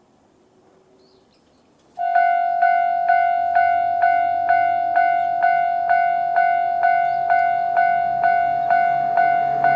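Japanese railway level-crossing alarm at its standard warning tone. It starts about two seconds in and strikes a steady, bell-like ding about twice a second, warning that a train is approaching.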